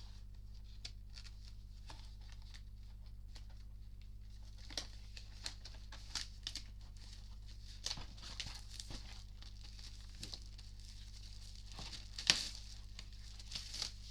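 Plastic and paper packaging crinkling and tearing as a vinyl LP set is unwrapped by hand, in irregular crackles that grow busier after a few seconds, with one sharp crackle near the end.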